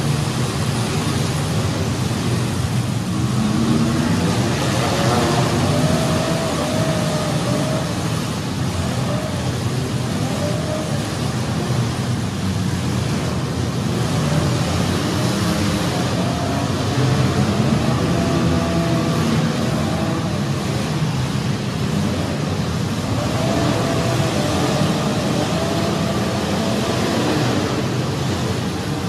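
Engines of several compact demolition derby cars running and revving hard together, a dense, steady engine din with a wavering engine whine rising out of it now and then.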